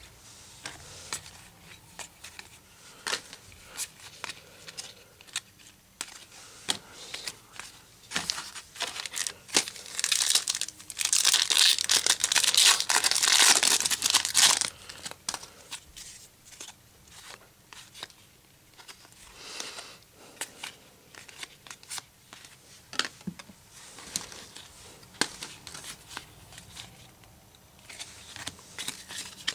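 Foil wrapper of a Topps football card pack crinkling and tearing as it is ripped open, loudest for a few seconds in the middle, with cards flicking and clicking as they are handled throughout.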